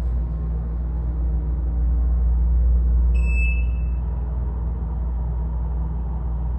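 Schindler-modernized Minnesota elevator car running between floors: a steady low rumble of the car in motion, with a single short high electronic beep from the car about three seconds in.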